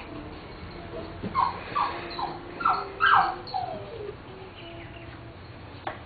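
Small dog whimpering and yipping in a quick string of about seven short high calls, each dropping in pitch.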